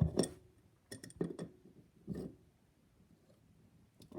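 A crescent wrench clinking against the metal nut of a toilet water supply line as it is tightened: half a dozen short clinks and taps in the first two seconds or so.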